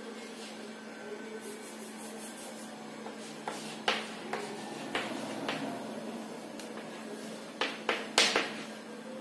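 Chalk tapping and scratching on a chalkboard as letters are written: a string of sharp taps in the second half, loudest near the end, over a steady low hum.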